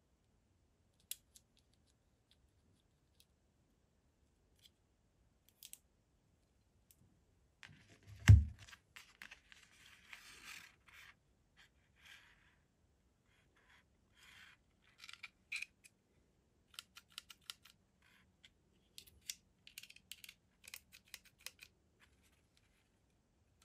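Hand disassembly of a Springfield Echelon 9mm pistol: scattered clicks, one heavy knock about a third of the way in as the slide is taken off and set down, then sliding and rattling and more sharp clicks as the central operating group is worked out of the polymer grip frame.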